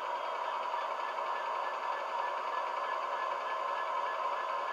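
Sound from a Hattons Class 66 model locomotive: its LokSound 5 decoder plays a Class 66 diesel idling steadily through a small 27x27x13 mm megabass speaker, with little deep bass.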